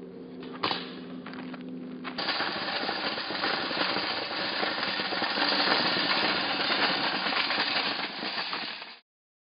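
Metal shopping cart rolling over a gravel road, its wheels and wire basket rattling loudly. A single clank comes first. The rattle starts suddenly about two seconds in, grows louder and cuts off abruptly near the end.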